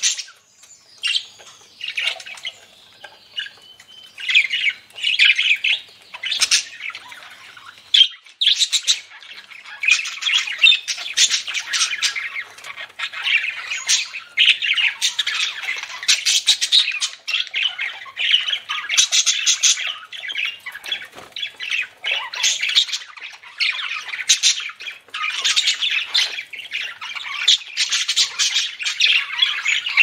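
A flock of budgerigars chattering: a near-continuous stream of quick, high, warbling calls, with a short lull about a second in.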